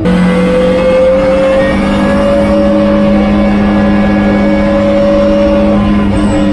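Time-attack race car's engine heard from on board, running at steady high revs along a straight, its pitch climbing slightly at first, then holding and easing off a little near the end.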